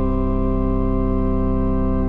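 Church organ holding a full, steady chord, the closing chord of the piece, released just after.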